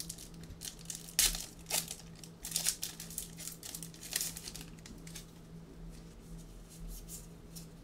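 Foil trading-card pack wrapper crinkling as it is torn open and crumpled by hand, with sharp crackles over the first few seconds and softer handling after.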